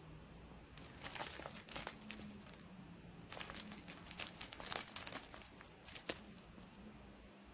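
Scratchy rustling and crinkling in two spells of quick bursts, about a second in and again from about three to six seconds in, as a kitten paws and wrestles a plush teddy bear on a fleecy blanket.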